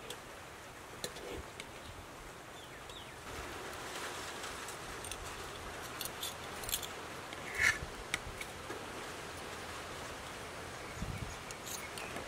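A slotted steel ladle clinking and scraping against a metal pot and a steel plate as cooked rice is scooped out, a few scattered sharp clinks, the loudest about two-thirds of the way through, over a steady outdoor hiss.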